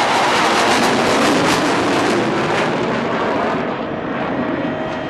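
Aircraft flying low overhead: a loud, steady rushing noise that dulls and drops off after about three and a half seconds as the aircraft moves away.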